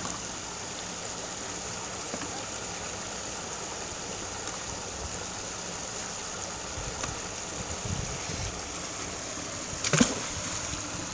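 Steady rush of a small waterfall on a stream, with a short splash near the end as a fishing magnet on its rope lands in the water.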